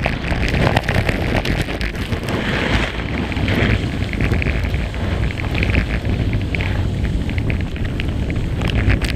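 Skis running fast over packed, chopped-up snow: a continuous scraping hiss full of small crackles, with wind rumbling on the camera microphone.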